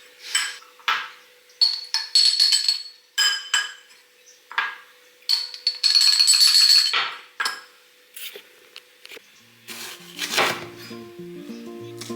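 A spoon or other cutlery clinking and tapping against dishes in a series of sharp, ringing knocks, with a longer rattling stretch about five to seven seconds in. Music starts about ten seconds in.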